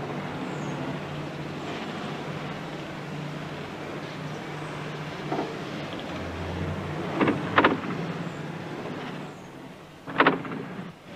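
Street traffic noise, a motor vehicle running steadily, with two short pitched sounds in quick succession about seven seconds in and another near the end.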